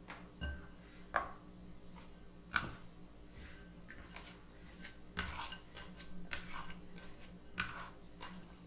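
Plastic dough scraper scraping around a glass mixing bowl and folding soft bread dough during its third punch-down. Short scrapes and soft knocks come in a loose series, the sharpest about one, two and a half and seven and a half seconds in.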